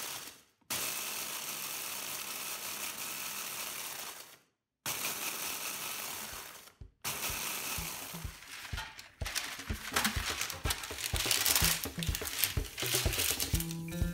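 Electric mini chopper running in bursts, its blade grinding corn flakes and nacho chips into crumbs: three long runs with short stops, then a stretch of quick short pulses.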